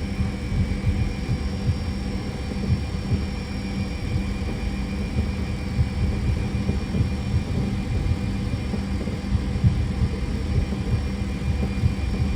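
Steady cockpit hum of a Fokker 100 airliner on the ground: a low rumble with several steady whining tones over it.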